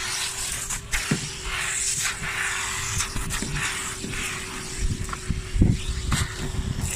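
Vacuum cleaner running with a steady motor hum, its suction hiss rising and falling as the nozzle moves over the car's back seat, with a few knocks of the nozzle against the interior.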